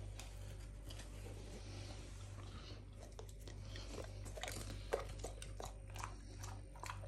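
Dogue de Bordeaux puppy chewing a treat: a run of small crunching clicks from about halfway through, over a faint low hum.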